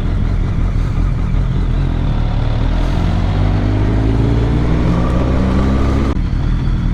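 BMW motorcycle under way, its engine note rising steadily as it accelerates, over steady wind noise. The engine sound drops abruptly near the end.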